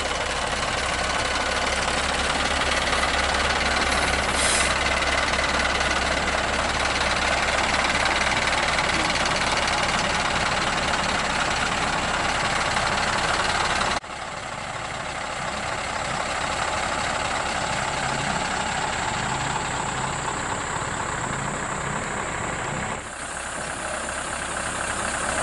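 Scania R580's V8 diesel engine idling steadily, a low hum under broad engine noise. The sound drops abruptly about fourteen seconds in and again near the end.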